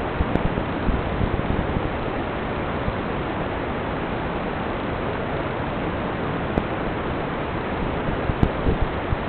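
Steady, even rushing hiss with no motor tone in it, broken by a few short low knocks near the end.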